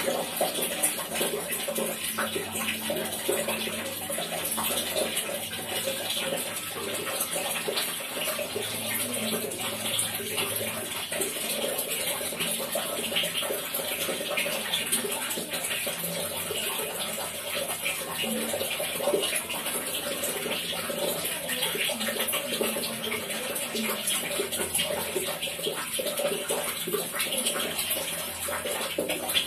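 Water falling and splashing without a break, a dense steady patter of drops.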